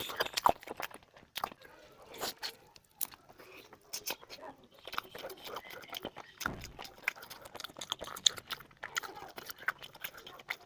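Close-up mukbang chewing of cooked kaleji (liver): a steady run of irregular mouth clicks and smacks as it is bitten and chewed.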